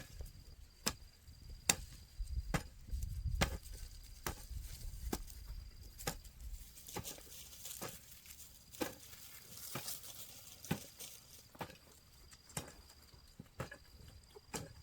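A series of sharp knocks or taps, about one a second, over a faint steady high-pitched tone.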